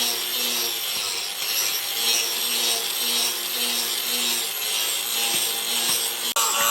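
Rhythmic hand scraping of the steel of a leaf-spring chisel blank, in steady back-and-forth strokes about twice a second. It stops abruptly near the end.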